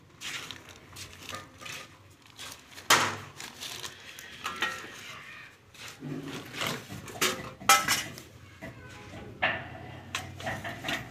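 Sheet-metal electrical switch boxes clinking and clanking against each other and the tools as they are picked up and set down. It comes as a run of separate knocks, some with a short metallic ring, the loudest about a third of the way in and again about two thirds through.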